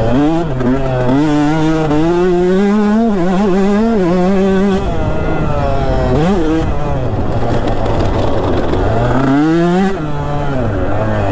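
2019 KTM 150 SX's single-cylinder two-stroke engine under hard throttle. Its revs climb through the first five seconds, drop off with a quick blip about six seconds in, then climb again and fall away near the end.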